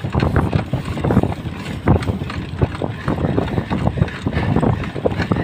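Wind buffeting the microphone of a camera riding on a mountain bike as it is pedalled along a concrete road, an uneven rumble that gusts up and down without pause.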